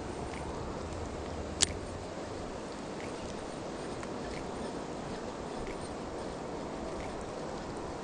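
Steady rushing of a mountain river, with a single sharp click about a second and a half in.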